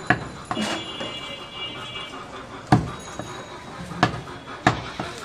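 Large butcher's knife chopping goat meat on a wooden log chopping block: about five sharp knocks at uneven intervals, the loudest a little under three seconds in.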